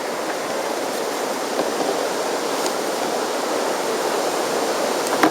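River water rushing steadily past, an even hiss with no distinct splashes.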